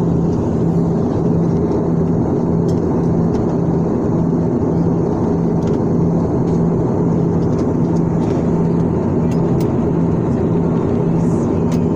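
Steady roar of jet airliner cabin noise from a window seat beside the wing: turbofan engine and rushing airflow, with a steady low hum underneath.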